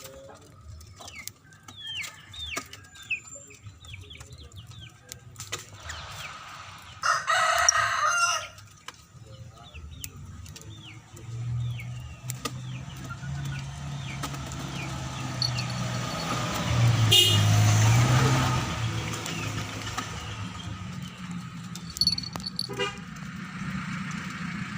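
Lovebirds chirping in short, quick falling notes, with a rooster crowing once, loudly, about seven seconds in. From about eleven seconds a motor vehicle's engine hum rises, loudest around seventeen seconds, then fades.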